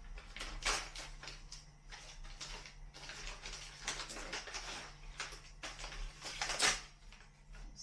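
A sealed MRE snack pouch being torn open and handled by hand: irregular crinkling and rustling of the packaging, with two louder crackles, one about a second in and one near the end.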